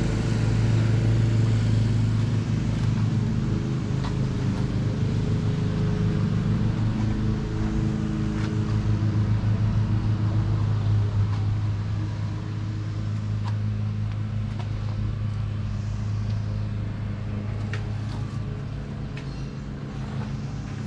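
Car driving: a steady engine and road hum whose pitch shifts a little a few times, easing off somewhat about twelve seconds in.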